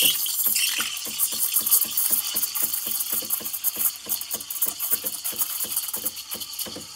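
Espresso machine steam wand hissing into a small glass jug of water with a drop of washing-up liquid, whipping it into foam. The hiss is loud at first and eases about half a second in into a steadier hiss with a fast flutter, fading toward the end.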